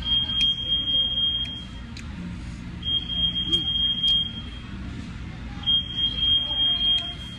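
An electronic beeper sounding a steady high-pitched tone three times, each about a second and a half long with a gap of about a second, over a low steady rumble and a few sharp clicks.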